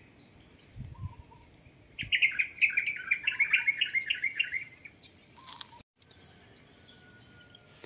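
Songbird chirping: a fast run of sharp repeated notes, about six a second, for nearly three seconds. Before it come a few lower single whistles and a dull thump.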